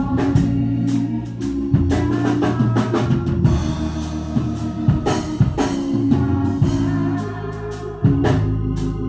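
Church band playing an instrumental passage: organ holding sustained chords over a low bass line, with a drum kit keeping a steady beat of cymbal and drum hits.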